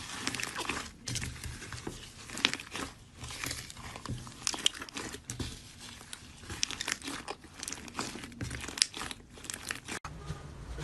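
Slime being squeezed and kneaded by hand, giving an irregular run of crackling, popping clicks. The sound breaks off suddenly near the end.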